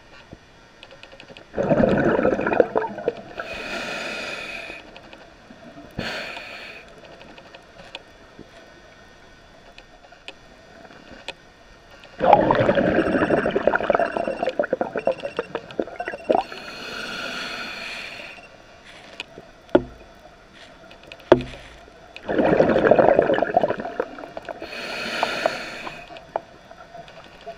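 A scuba diver breathing through a regulator underwater: a loud burst of exhaled bubbles, then the hiss of the next inhalation, three breaths about ten seconds apart.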